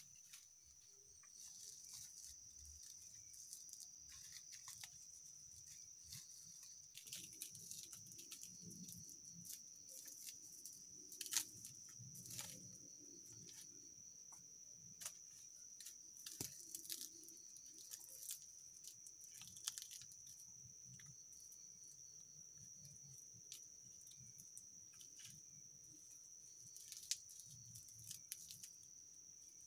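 Insects calling with one steady high-pitched note, under scattered soft crackles and taps of dry leaves and bamboo poles being handled, a few of them sharper knocks.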